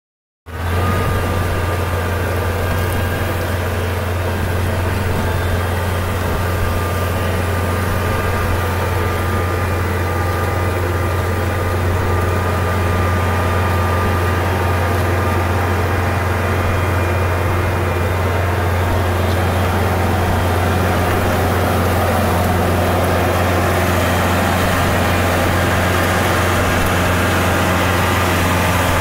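Tractor engine running steadily under load while pulling a two-bottom plow through sod, a constant low hum with no change in speed.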